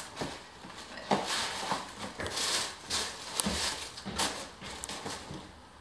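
Tissue paper rustling and crinkling in uneven bursts, with a few light clicks and knocks of a cardboard shoebox being handled, as sneakers are lifted out of their tissue wrapping.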